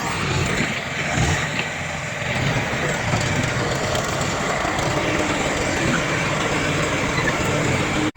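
Heavy diesel earthmoving machinery running steadily: a low engine rumble mixed with broad mechanical noise.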